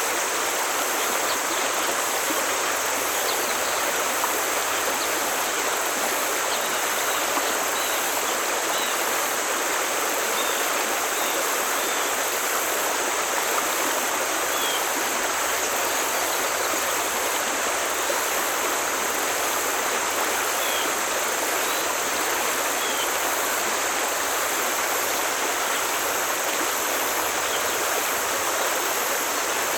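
Forest stream flowing, a steady, even water noise that does not change, with a few faint short high chirps over it.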